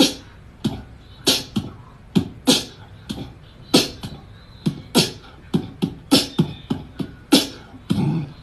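A rhythmic beat of sharp percussive hits, two or three a second, with thumps and clicks in a loose pattern.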